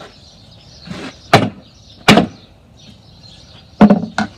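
Hammer blows on a wooden bedside table: about four hard, irregularly spaced strikes, the last two close together near the end.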